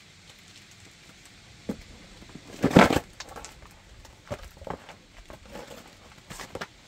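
Boxed plastic toy tanker truck being stepped on and crushed under flip-flops. There is one loud crunch about three seconds in as the box gives way, then a string of smaller cracks and crinkles of cardboard and plastic.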